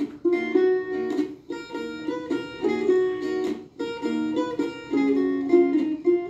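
A plucked acoustic string instrument playing an instrumental introduction of picked notes and chords, with short pauses between phrases and no singing yet.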